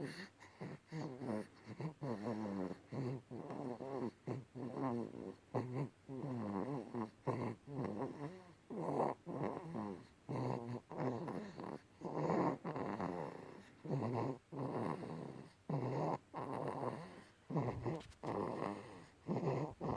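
Sleeping infant snoring, a short, pitched, snuffly snore with each quick breath, about one a second.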